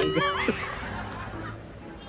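A short added editing sound effect at a cut: warbling, wavering tones for about half a second over a hiss that fades away within about a second and a half.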